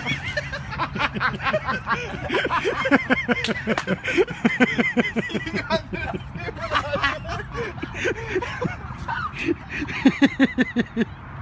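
Laughter, in quick runs of short repeated bursts with brief pauses between them.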